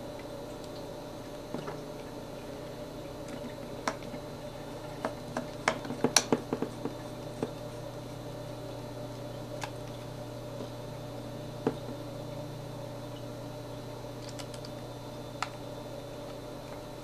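Small scattered clicks and taps of a number 0 screwdriver and tiny screws as screws are driven back into a laptop-size hard drive's mounting, over a steady low hum. The clicks come thickest about four to seven seconds in, with a few single ones later.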